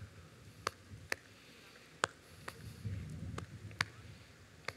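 Quiet lull with scattered single sharp clicks, irregularly spaced, roughly one or two a second, over a faint low rumble.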